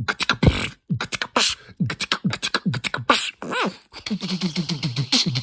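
Beatboxing performed without a microphone: a fast vocal drum pattern of low falling thumps and sharp high hits, with a brief wavering vocal tone about three and a half seconds in and a quick run of low bass pulses near the end.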